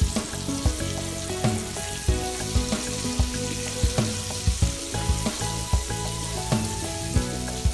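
Battered chicken drumsticks deep-frying in hot oil in a cast iron skillet: a steady sizzle while the pieces are turned over with tongs.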